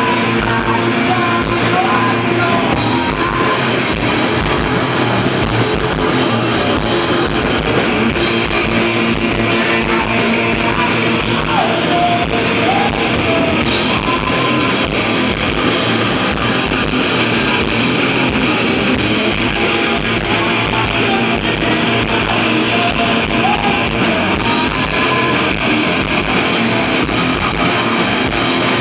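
Rock band playing a heavy song: electric guitar and drum kit with cymbals, with a voice singing over them, loud and unbroken.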